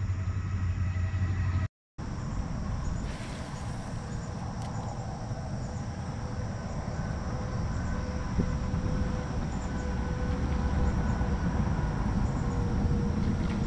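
Pedal-drive kayak under way: a steady rumble of the pedal drive and water along the hull, with a few faint held tones. The sound drops out briefly at an edit about two seconds in, then carries on steadily.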